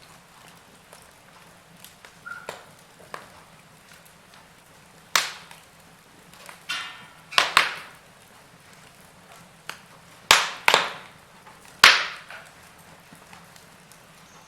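Wood fire in a fireplace crackling: irregular sharp pops and small ticks over a faint steady hiss, the loudest pops coming in pairs in the second half, with a short hissing sputter from the burning wood before one pair.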